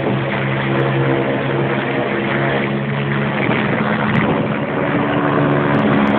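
Helicopter flying low overhead after take-off: its turbine engine and rotors run steadily, a mix of low tones over a rushing noise.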